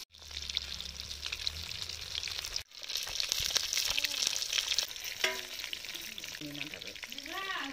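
Fish sizzling in hot oil in a steel wok, with a metal spatula scraping and clicking against the pan as the pieces are turned and lifted out. The sound is broken by a short gap about two and a half seconds in.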